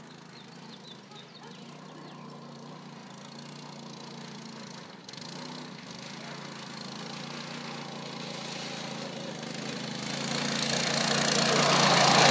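Small single-cylinder engine of an off-road go-kart running steadily, growing louder as the kart approaches. Near the end it passes close, and the engine noise swells together with the crunch of tyres on gravel.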